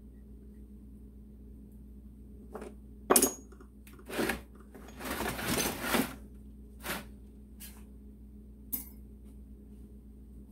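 Metal tools and engine parts handled on a workbench. A sharp metallic knock about three seconds in, then about two seconds of clattering handling noise, and a few lighter clicks near the end.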